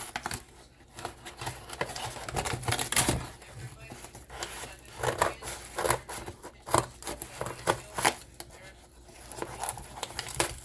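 Parcel packaging being handled and torn open by hand: irregular rustling, crinkling and tearing with short scrapes and taps.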